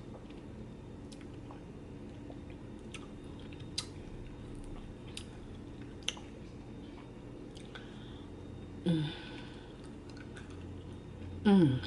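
Close-miked eating: soft chewing with scattered sharp lip smacks and mouth clicks, and two short hummed sounds about nine and eleven and a half seconds in.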